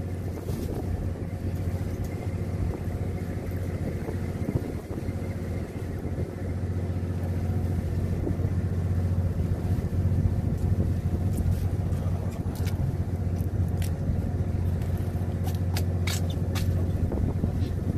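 Steady low hum of a fishing boat's running machinery, with a few light clicks in the second half.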